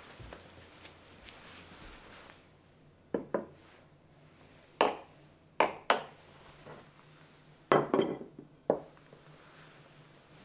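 Tableware being set down on a wooden tabletop, including a stemmed glass: about eight short clinks and knocks, some ringing briefly, bunched between about three and nine seconds in.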